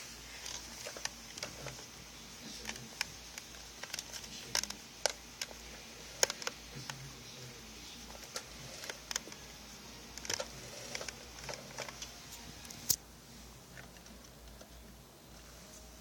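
Toy RC garbage truck being worked: irregular light plastic clicks and ticks over a faint steady hiss.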